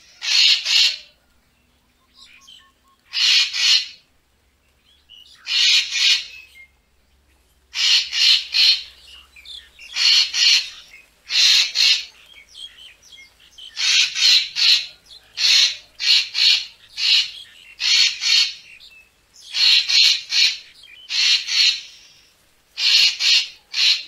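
Racket-tailed treepie giving repeated harsh, grating calls, often in quick pairs or triplets, one burst every second or two and coming closer together after the first few seconds.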